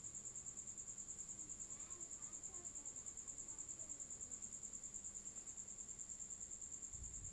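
Insect trilling steadily: a high, even pulsing tone at about ten pulses a second.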